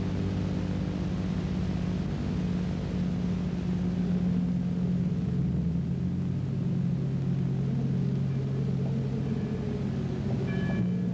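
Background film-score music: dark, low sustained chords held for several seconds at a time, with a few higher bell-like tones entering near the end.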